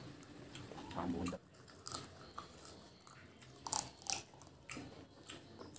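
Close-up eating sounds: a person biting and chewing pieces of cooked desi chicken off the bone, with several short sharp crunching clicks.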